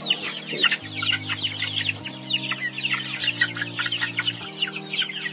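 A flock of chickens calling over one another at feeding time: a dense stream of short, high, falling peeps and clucks. Low held music chords run underneath.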